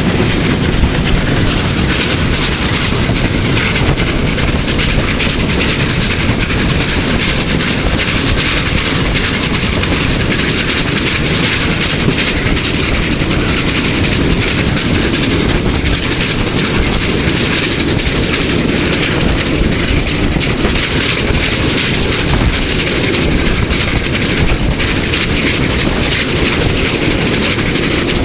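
PKP Ol49 class steam locomotive running at speed, heard from the cab: a loud, steady din of the engine working and wheels clattering on the rails, with a fast, even run of beats.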